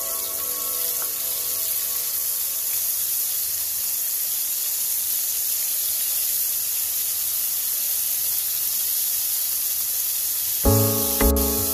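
Batter-coated squid deep-frying in hot oil in a wok: a steady sizzling hiss. Background music comes in near the end.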